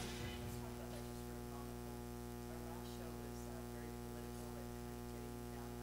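Low, steady electrical mains hum with a stack of overtones, left on the recording after the music ends.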